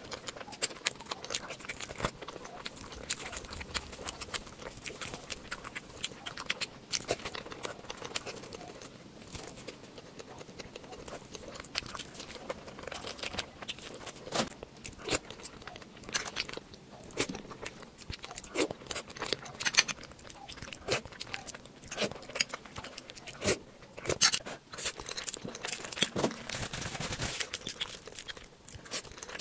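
Close-miked ASMR eating: a person biting and chewing food, with many irregular crunches and wet clicks.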